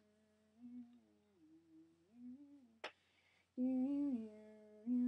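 A person humming a tune: held notes that slide from one pitch to the next, growing louder a little past halfway. A single sharp click about three seconds in.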